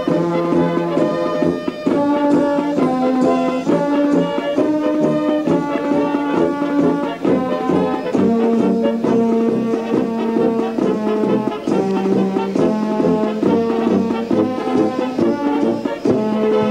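A military brass band playing, with held chords that change about once a second.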